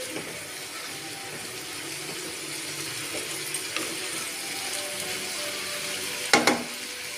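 Chickpeas, onion and capsicum in masala sizzling in a kadai while a wooden spatula stirs them, a steady hiss. One sharp knock of the spatula against the pan about six seconds in is the loudest sound.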